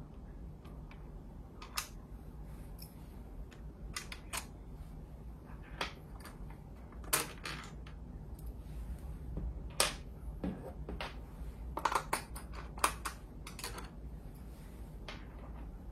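Scattered small clicks and taps of tools and metal and plastic parts being handled inside an opened 2015 iMac while its hard drive is being removed. The clicks are irregular, with a few sharper ones standing out.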